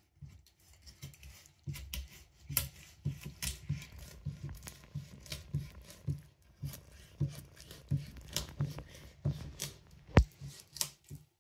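A boti, the curved floor-mounted Bengali blade, slicing a chitol (humped featherback) through its scaly skin and flesh: repeated short cutting strokes, about two a second, with a sharp knock about ten seconds in.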